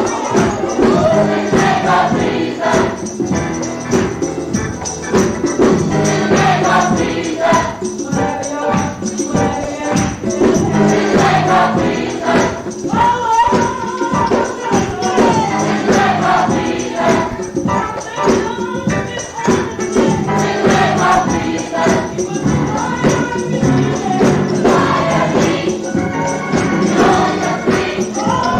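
Gospel choir singing with full accompaniment and a steady beat, a tambourine among the percussion.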